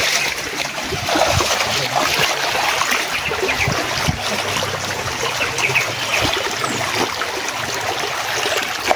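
Shallow stream running over stones, with splashing as someone wades through the water.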